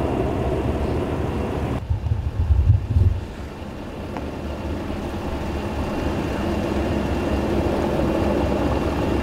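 Steady low rumble of idling vehicles at a street scene. About two seconds in the sound changes abruptly, and a brief, louder low rumble follows before it settles back to the steady rumble.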